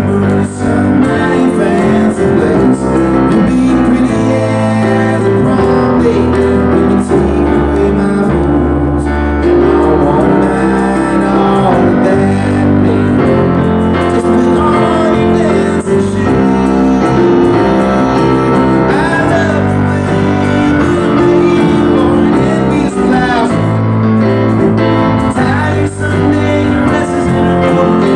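A live band playing a song: stage keyboard with drum kit and acoustic guitar.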